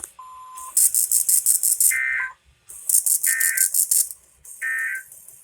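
NOAA Weather Radio EAS end-of-message data signal: three short warbling digital tone bursts about 1.3 seconds apart, marking the end of the required weekly test. They alternate with a loud, fast, pulsing high-pitched buzz, and a brief steady beep comes just before them.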